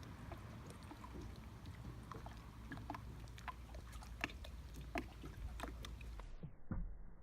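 Faint water sounds: scattered small drips and clicks over a low steady rumble. About six and a half seconds in the sound turns abruptly muffled.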